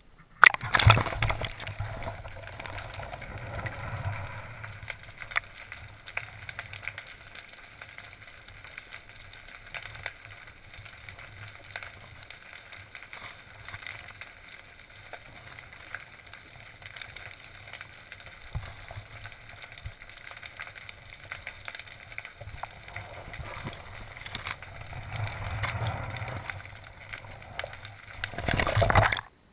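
Water heard from a submerged waterproof camera housing: a sudden splash as it goes under about half a second in, then a steady muffled rushing and gurgling of water moving past it, growing louder near the end before cutting off.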